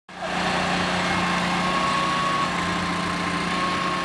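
Sokhi Hydro Sopper, a ride-on sponge-roller machine that soaks water off cricket grounds, running steadily as it drives across the grass, with a steady hum and a thin whine that comes in about a second in.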